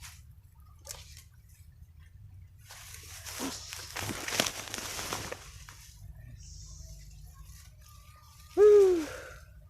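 Water splashing and dripping for about two and a half seconds, a few seconds in, then near the end a short voiced grunt, the loudest sound here, that rises and falls in pitch.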